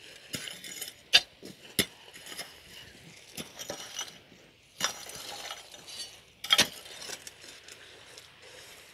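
Steel digging bar and hand tools striking stones and gravel: sharp, irregular metallic clinks, with a second or so of rougher scraping about halfway through.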